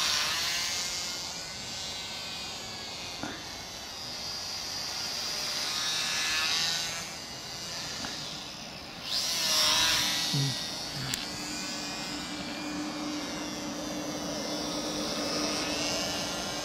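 Small brushed-motor propeller of a WLToys F949 Cessna-182 RC plane whining in flight, its pitch rising and falling as it flies past and the throttle changes. It is loudest on a close pass about nine to ten seconds in.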